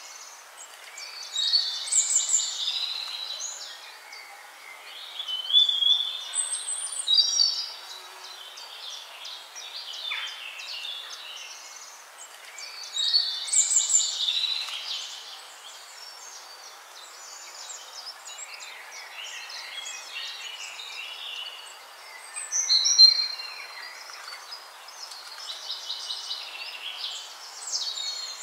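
Birds singing and chirping, in bursts of song every few seconds with fainter chirps in between.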